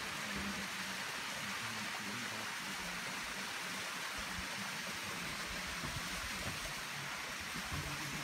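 Water pouring from a pipe into a small garden pond, a steady splashing rush.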